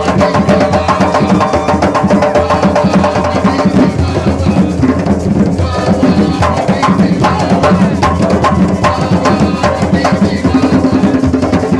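Live drumming with a fast, steady beat of sharp hand-drum strikes.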